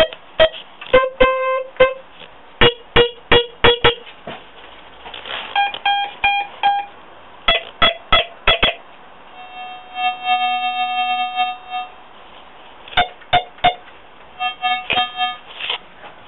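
Electronic beeps from a homemade gadget: quick clusters of short pitched tones that change pitch from note to note, with one longer held tone of about two seconds about ten seconds in.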